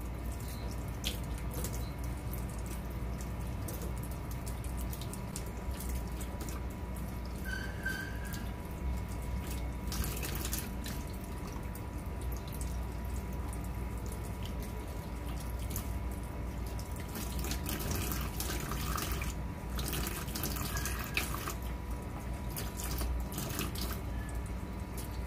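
Kitchen tap running steadily into a stainless-steel colander in the sink as roasted eggplants are rinsed and peeled by hand under the stream. A few short knocks and splashes come from the handling.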